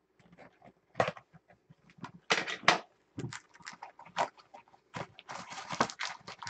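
Cardboard and foil wrappers crinkling, scraping and rustling as a sealed hobby box of baseball cards is opened and its packs are pulled out by hand. The handling comes in irregular crackly bursts, louder about a second in, again around two and a half seconds in, and busier from about five seconds on.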